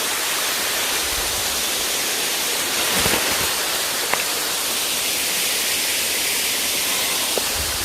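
Waterfall rushing with a steady, even roar, with a couple of faint clicks about three and four seconds in.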